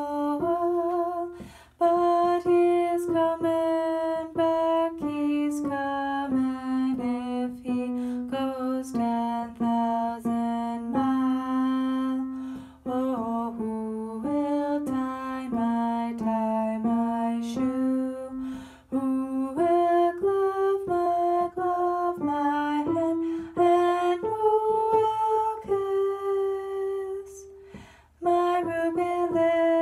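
Slow folk-song vocal line sung in long held notes, one note every second or two, with short breaths between phrases.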